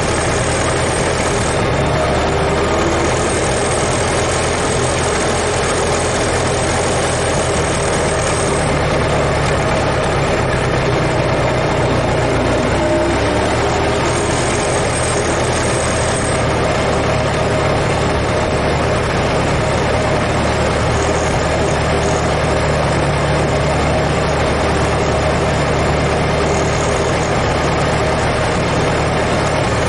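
Ford Model T four-cylinder engine running steadily.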